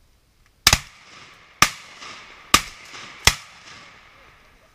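Four shotgun shots fired at ducks, a little under a second apart, each trailing off in an echo.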